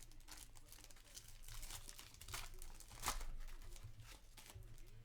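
Wrapper of a trading-card pack crinkling and tearing as it is opened, with irregular crackles, loudest about two and a half and three seconds in.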